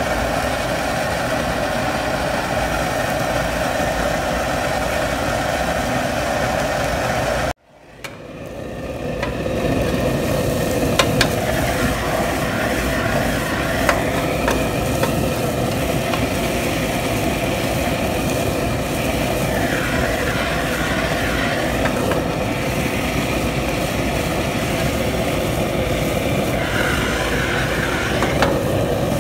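Steady roar of a commercial kitchen gas range burner, with a spatula scraping and tapping a non-stick pan a few times as fried rice is turned over. The roar cuts out abruptly about a quarter of the way through and swells back over a couple of seconds.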